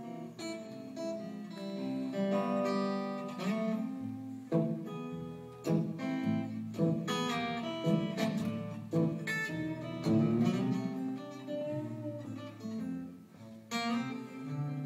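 Acoustic guitars playing an instrumental break in a country-blues song, a run of plucked notes and strummed chords.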